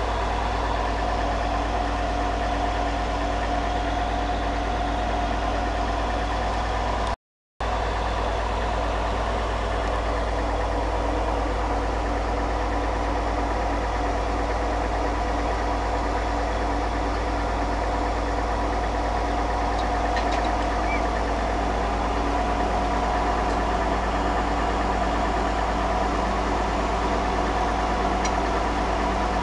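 Truck-mounted core drilling rig's engine running steadily; the sound cuts out completely for a split second about seven seconds in.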